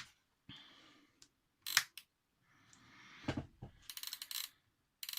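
Handling noises from an old Sony flip-clock radio being turned and moved on the bench: light scrapes, a couple of sharp plastic knocks, then a fast run of rattling clicks twice near the end.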